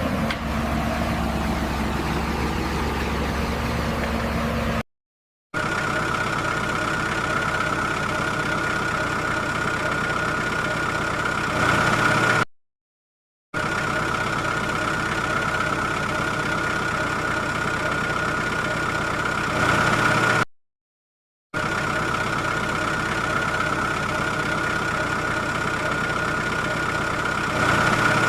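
A steady, engine-like mechanical running sound with a constant whine. It plays in stretches of about seven seconds, cut by short dead silences, and swells briefly just before each cut, like a repeated sound clip.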